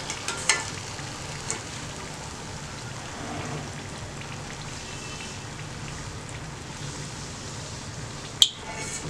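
Nacho chips deep-frying in oil with a steady sizzle. A steel slotted spoon gives a few light clicks against the pan in the first two seconds and one sharp metallic clink near the end.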